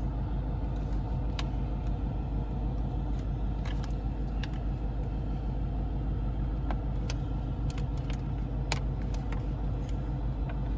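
Steady low rumble of a car idling, heard inside the cabin, with a few scattered light clicks and taps of hands on the plastic dash trim.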